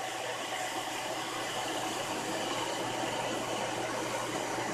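Steady, even background hiss with a faint low hum underneath, like an appliance fan running; nothing starts or stops.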